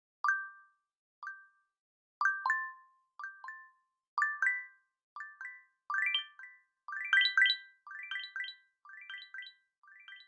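Google Pixel 4 ringtone: a tune of short, bell-like struck notes, sparse at first, building into quick overlapping runs about six to eight seconds in, then thinning out.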